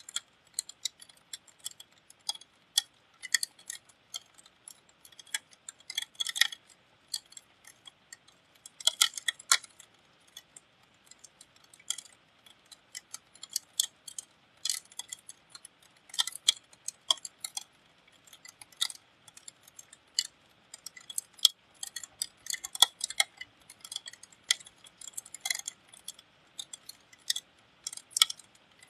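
Rain dripping onto a hard surface close to the microphone: sharp, irregular ticks, a few a second, with denser clusters now and then.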